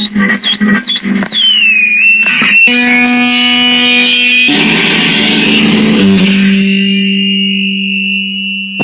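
Electric guitar played through effects. A fast wobbling pitch warble over a held low note gives way, about a second in, to a high tone gliding down and settling. Sustained chords follow, then a noisier, denser stretch, then a long held low note with a steady high whine over it.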